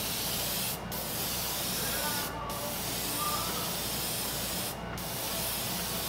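Airbrush spraying paint in a steady hiss, which breaks off briefly three times.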